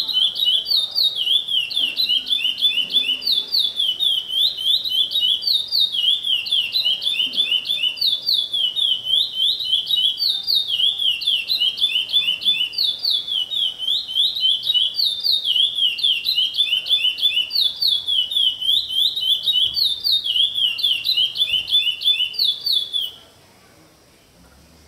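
Caged songbird singing one long unbroken bout of fast, repeated high chirping phrases that stops abruptly near the end.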